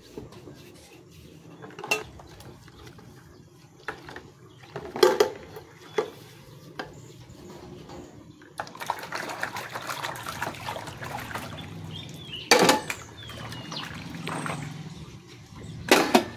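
Dishes being washed by hand in basins of water: a stainless steel pot, plates and bowls clink and knock together, with several sharp clunks and water sloshing and splashing through the second half.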